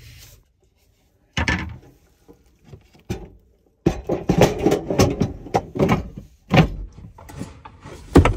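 Rummaging in a wooden storage drawer under a bed: an opening thump, then items clattering and knocking as things are moved about, with a sharp wooden knock near the end.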